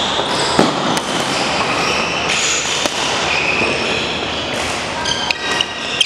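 Busy sports hall during badminton play: short sneaker squeaks on the wooden court floor and a few sharp clicks of racket hitting shuttlecock, one just before the end as a rally starts.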